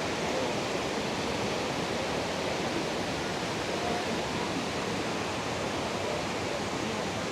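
Steady roar of Ouzoud Falls' cascading water, an even rushing noise that holds unchanged.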